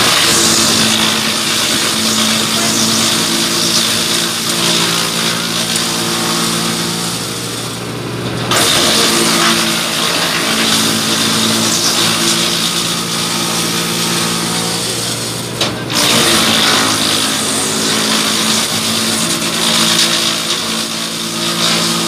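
Tractor-driven Hasatsan DP 700 T wood chipper shredding branches: a steady engine and rotor hum under a dense, loud noise of wood being chipped, which drops out for a moment twice.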